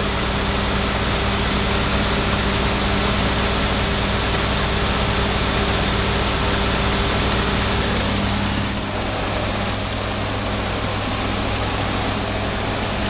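Engine running steadily under an even rushing hiss. About two-thirds of the way through, the sound drops a little and the engine note shifts lower.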